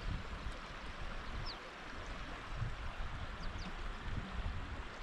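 Steady rushing outdoor noise with uneven low buffeting, and a few faint, short, high chirps: one about a second and a half in, two more about three and a half seconds in.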